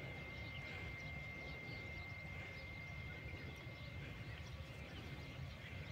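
Faint open-air ambience: a low rumble with a steady thin high whine and a few faint scattered chirps.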